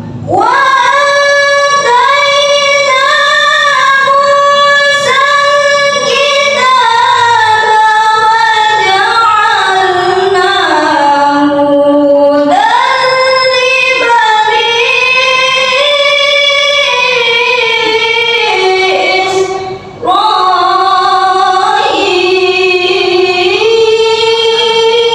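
A young woman's voice reciting the Qur'an in melodic tilawah style into a handheld microphone, with long, ornamented held notes and a short pause for breath about twenty seconds in.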